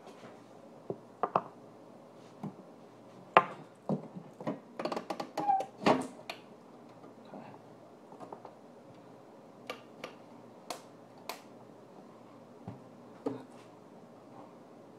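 Plastic headlight lens being pulled from its housing as the heated glue seal gives way: scattered sharp clicks and cracks, with a dense run of crackling about five seconds in and occasional single clicks after.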